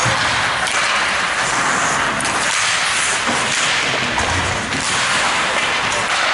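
Ice hockey rink sound: a steady loud hiss of skates on the ice and arena noise, with a few faint sharp clicks.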